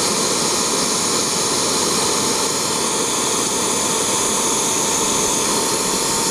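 Homemade turbojet engine running steadily at high speed on propane gas: a continuous jet roar with a high whine. A steady whistling tone joins about two seconds in.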